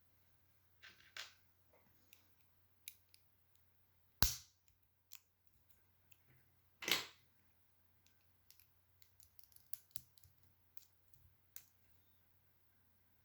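Lego bricks being handled and pressed together: scattered small plastic clicks, with two louder knocks about four and seven seconds in.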